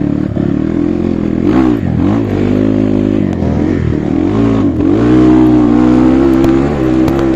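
A CRF dirt bike's engine revving under the rider. Its pitch dips and rises several times with the throttle over the first five seconds, then holds steady and higher.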